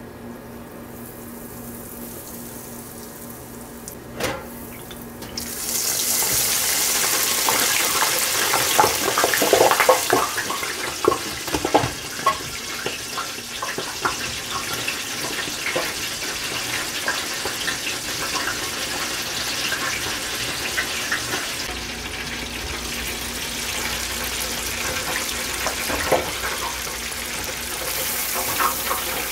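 Breaded catfish fillets deep-frying in hot oil in an electric deep fryer: a loud, steady sizzle full of crackles and pops. It starts suddenly about five seconds in, after a single click, and stays strong throughout.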